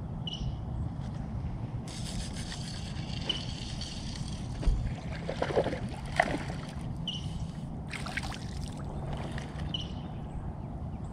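Water lapping against a bass boat's hull while a hooked small bass is played to the boat, thrashing and splashing at the surface with a few sharp splashes about five to six seconds in. Short high chirps recur every few seconds.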